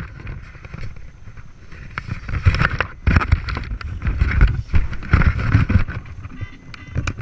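Wind buffeting a body-worn action camera's microphone as an uneven rumble, with rustling and sharp knocks of the camera and clothing being jostled as the climber moves onto the tree; the noise gets louder about two seconds in.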